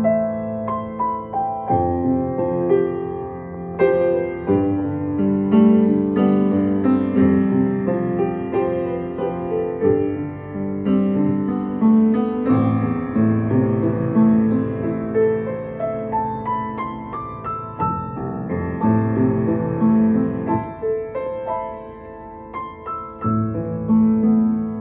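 Steinway Model M grand piano played solo: a continuous piece of melody over chords, which softens for a moment about three-quarters of the way through and then swells again.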